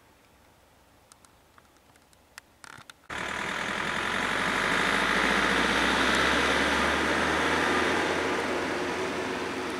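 Near silence with a few faint clicks, then about three seconds in a small pickup truck's engine comes in suddenly, loud and steady with a low hum, swelling and then slowly fading as the truck drives away.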